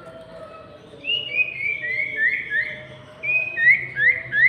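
Sirtu songbird singing loud, clear whistled notes in two runs: first a string of short notes stepping down in pitch, then a few quick sharply rising upslurs.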